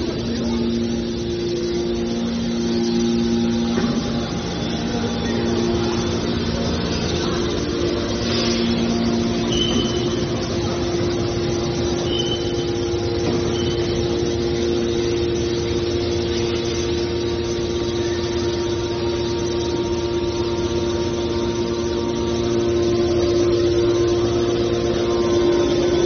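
Hydraulic power unit of a scrap metal baler running: electric motors driving the hydraulic pumps with a steady hum in a couple of held tones.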